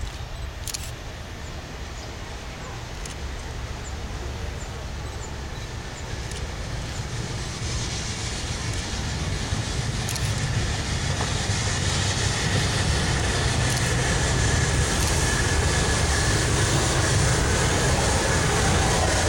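Italian FS Class 625 2-6-0 steam locomotive and its train approaching and running alongside, a low rumble that grows steadily louder as it draws near.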